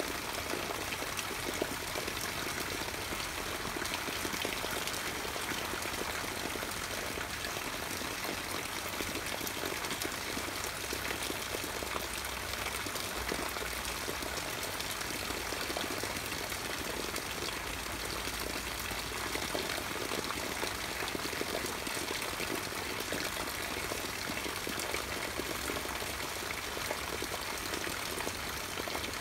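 Steady rain falling on the leaves of an eggplant plant: an even hiss of rain dotted with many small drop ticks, unchanging throughout.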